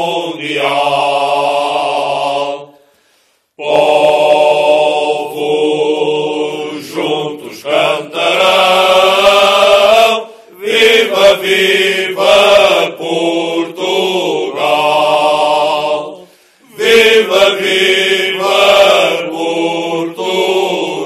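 Male choir singing in the Alentejo cante style, many voices together in slow, long-held phrases. The singing breaks off briefly about three seconds in and again about sixteen seconds in.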